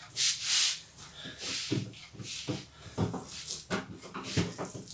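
Oiled dough being pulled and pressed by hand on a countertop: short wet smacks and slaps, several over a few seconds, with breathy puffs between them.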